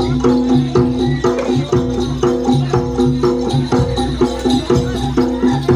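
Live jaranan music: a traditional Javanese percussion ensemble playing a fast repeating figure of about two beats a second over a held note, with jingling hand percussion.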